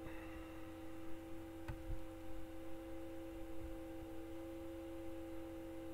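Steady electrical hum with a few faint computer-mouse clicks as a list is scrolled and an item is selected.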